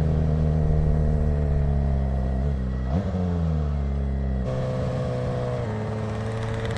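Sport motorcycle engine heard from the rider's seat. Its note falls as the bike slows into a turn, with a short rise and fall about three seconds in, and then it runs steadily at low revs.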